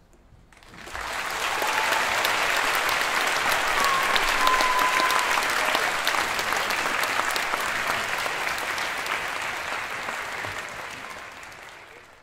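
A large audience applauding at the end of a concert band piece, with a couple of brief whistles. The clapping starts about a second in and fades away near the end.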